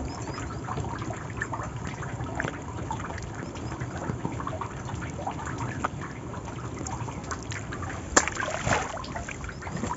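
Water trickling, dripping and splashing off a fishing net as it is hauled in over the side of a wooden boat, with many small irregular ticks and one sharp knock just after eight seconds.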